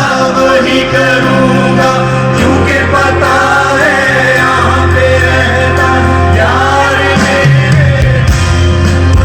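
Live band music with a singing voice gliding over sustained bass notes that shift every second or two, and a light steady percussion beat.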